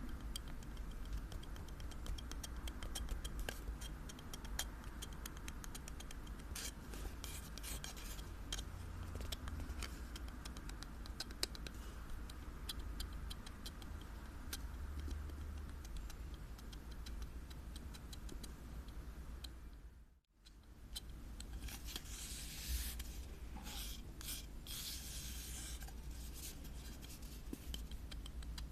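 Close-miked ASMR scratching and tapping on small objects: a dense run of fine clicks and scrapes. A brief drop-out comes about two-thirds of the way through, followed by louder bouts of scratching.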